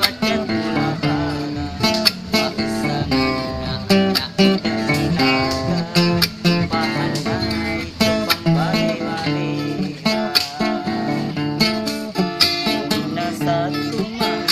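Music: plucked and strummed acoustic guitar playing continuously with other instruments.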